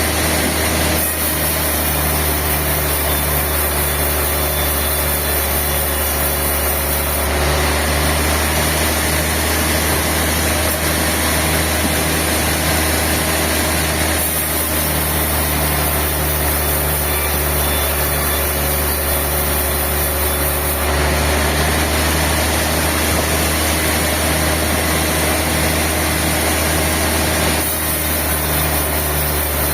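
Sawmill machinery running with a steady, loud mechanical hum. Its sound shifts abruptly about every seven seconds.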